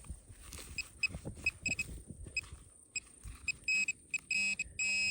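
Metal-detecting pinpointer beeping: short high chirps of one pitch that come more and more often and run together into a steady tone near the end as it closes in on a buried metal target.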